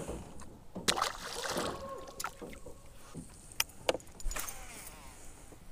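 Sounds of a plastic fishing kayak on calm water: soft water splashes with a few sharp clicks and knocks of gear against the hull.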